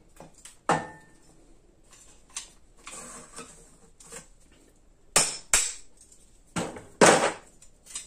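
Hammer striking a flat-blade demolition screwdriver to drive it under a glued-on magnetic strip on a steel tool cart drawer: a handful of sharp metallic knocks, the loudest two in quick succession about five seconds in and another about seven seconds in, with lighter scraping and ticks between.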